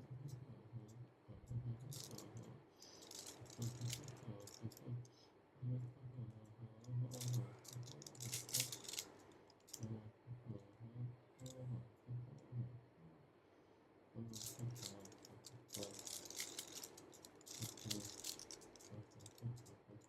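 A Rubik's Cube being turned by hand, its plastic layers clicking and rattling in quick flurries of turns with short pauses between.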